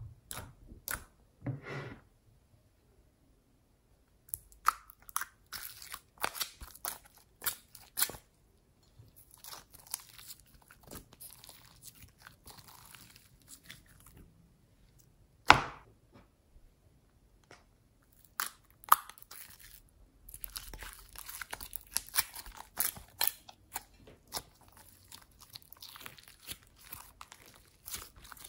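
Glossy slime being poked, kneaded and mixed by hand in a plastic bowl: irregular wet clicks, crackles and squelches, with one louder sharp snap about halfway through.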